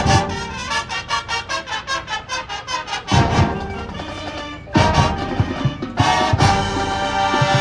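High school marching band playing, with brass and drums. A quick run of short repeated notes, about four a second, gives way about three seconds in to loud accented brass chords with drum hits, struck again near five and six seconds and held at the end.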